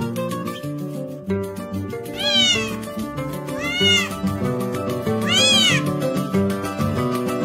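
A cat meows three times, each call rising then falling in pitch, over background music.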